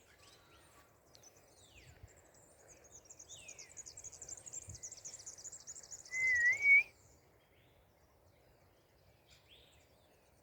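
Small birds twittering: a fast, high trill runs for several seconds with a few short falling chirps. About six seconds in comes one short, loud, wavering whistle.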